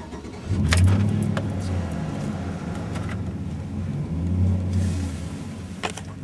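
Truck engine started from inside the cab: it catches about half a second in, flares up, then settles to idle, with a second brief rise in engine speed a little past the middle.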